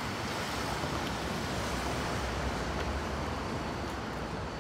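New York City Subway 7 train leaving along the elevated steel structure overhead: a steady, even rumble.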